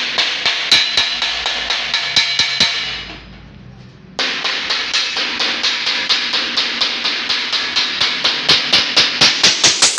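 Hand hammer striking along the seam of a rolled galvanized sheet-metal cone laid over a steel rail: rapid ringing metal blows, about four a second. They pause briefly about three seconds in, then resume and grow louder near the end.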